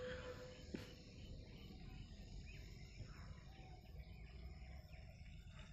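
Faint outdoor ambience: a steady high chirring of insects over a low hiss, with one soft click about a second in.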